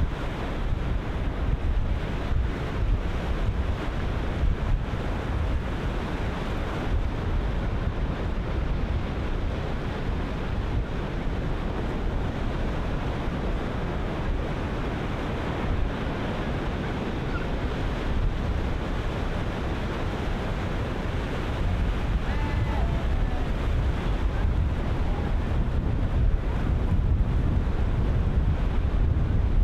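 Ocean surf breaking and washing in wave after wave, with wind buffeting the microphone in a deep, steady rumble.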